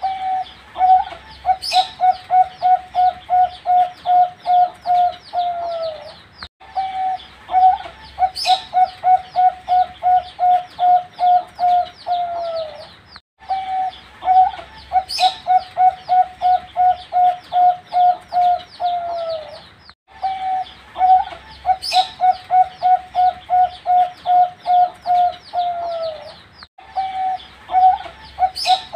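Young perkutut (zebra dove) singing: repeated phrases of quick staccato coos on one pitch, about three a second, each ending in a drawn-out falling note. The phrase comes back about every seven seconds, with a sharp high click near its start.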